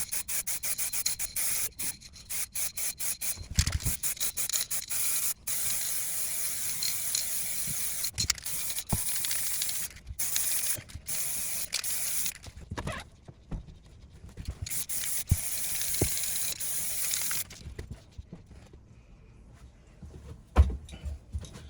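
Aerosol can of black spray paint hissing, first in many short squirts, then in longer sprays of several seconds with pauses between. A few knocks near the end.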